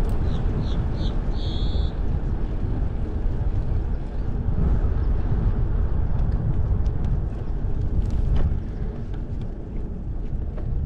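Wind buffeting the microphone of a camera on a moving bicycle, a steady low rumble mixed with tyre noise on pavement. A few short high-pitched chirps sound in the first two seconds.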